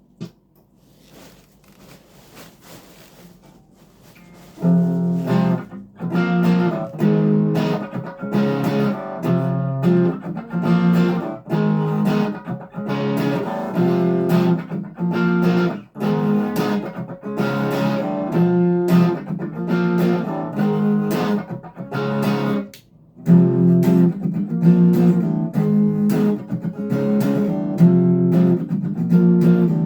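Legacy Les Paul LP 300 electric guitar played through an amp with a little overdrive. Faint playing at first, then rhythmic strummed chords from about four and a half seconds in, with a short break about three quarters of the way through.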